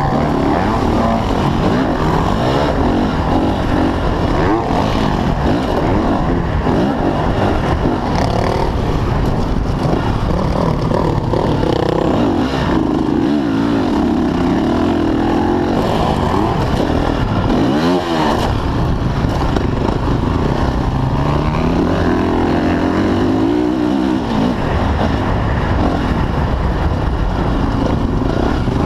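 Dirt bike engine heard close up from the rider's own motocross bike, revving up and down with throttle and gear changes through the whole stretch, with a sharp drop and climb in pitch about eighteen seconds in.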